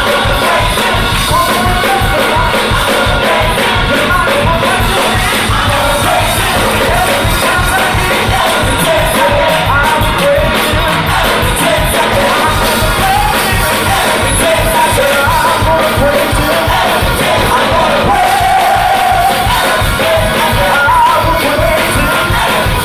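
Gospel choir singing over a band with drums, with shouts and cheers from the crowd.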